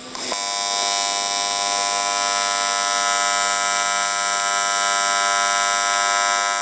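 AC TIG welding arc on aluminum from a Longevity Tigweld 200EX set to 90 Hz AC frequency: it strikes up right at the start with the high-frequency start, then gives a steady, even buzz whose pitch is set by the AC frequency. The steady note means the arc is running smoothly.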